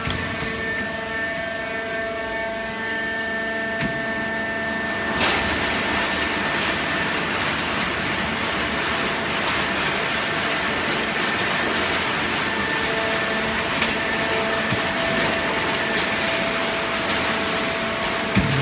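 Steady industrial machine noise: a hum of several steady tones, joined about five seconds in by a louder, even hiss that holds steady.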